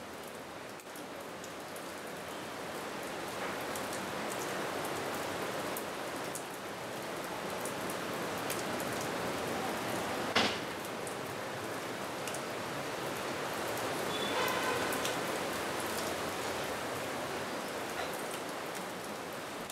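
Steady rushing noise of water, swelling slightly after the first couple of seconds. A single sharp knock about halfway through is the loudest sound, and a short pitched sound follows a few seconds later.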